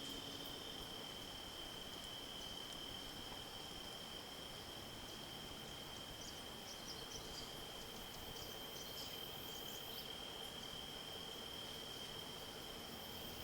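Quiet woodland background with a steady high insect trill and a few faint short high chirps around the middle.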